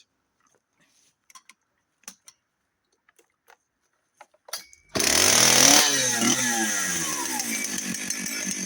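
A few faint clicks, then a Dolmar 6400 two-stroke professional chainsaw bursts into life about five seconds in and runs loud, its revs swinging up and down before easing back a little.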